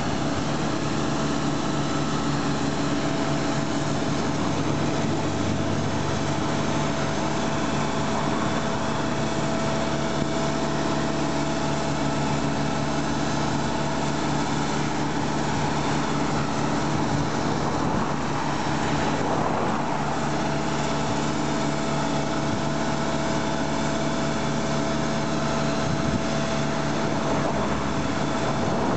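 Engine of road-construction machinery running steadily, with a constant whine held over the engine's hum.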